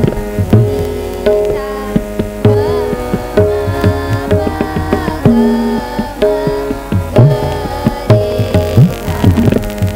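A group of girls singing an Indian song in unison, accompanied by tabla drums played by hand with frequent low strokes.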